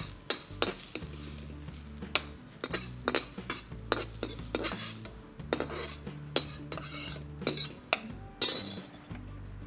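Perforated steel ladle scraping and clanking against a steel kadai and a steel mixer-grinder jar as the cooked greens and onions are scooped across: irregular metal clinks, several a second.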